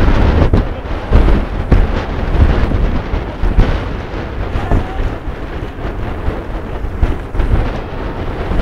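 Force 6 wind buffeting the microphone of a sailing yacht at sea, a loud low rumble that gusts up and down with a few sharp knocks, over the rush of water past the boat.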